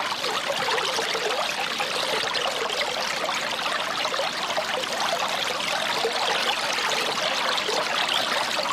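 Fountain water running and splashing steadily, a dense, even splashing with no pauses.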